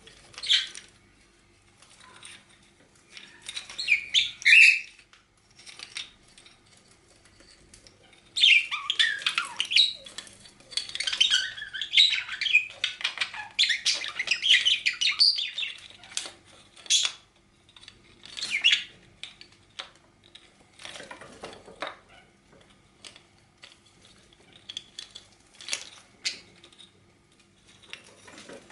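A bird chattering and squawking in quick runs, densest in a long stretch through the middle, with scattered clicks and clattering between the calls.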